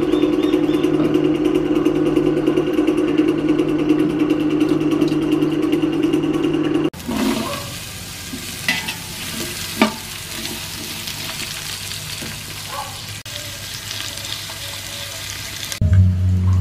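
A loud, steady engine-like hum. After a sudden cut, sliced onions fry in oil in a large aluminium pot with an even, quieter sizzle and a couple of sharp clinks from the metal ladle. Near the end another cut brings in a different low hum.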